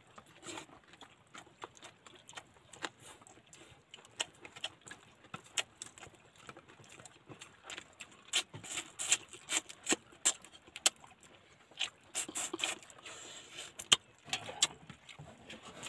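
A person eating by hand, chewing and smacking with many small, sharp clicks, busier from about halfway through.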